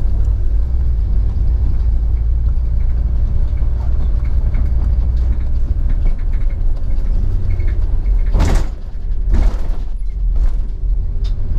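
Bus engine and road rumble heard from inside the moving bus, with two short hisses about eight and a half and nine and a half seconds in.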